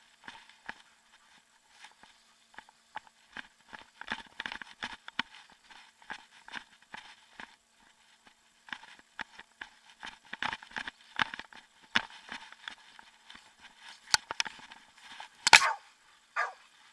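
Footsteps and rustling of a handler moving behind a trailing dog on a long line: irregular crackling steps throughout, with one louder rustle about three-quarters of the way through.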